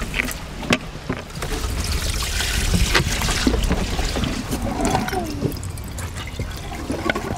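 Water being poured from plastic buckets into the tank of a portable membrane water filter, splashing and trickling in, with a few knocks of the plastic containers.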